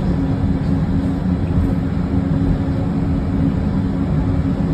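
Running noise heard inside a moving passenger train car: a steady low rumble with a constant hum.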